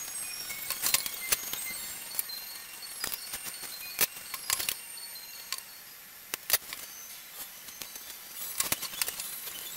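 Scattered knocks and clicks of wooden beams being picked up and set down on a wooden workbench, the louder knocks about four seconds in and again around six and a half seconds.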